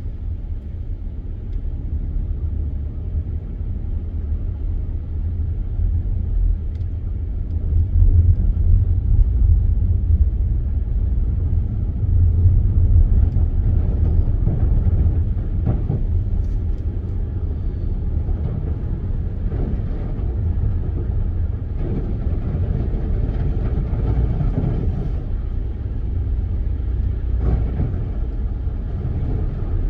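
A car driving: a steady low rumble of road and engine noise, swelling slightly around eight and thirteen seconds in.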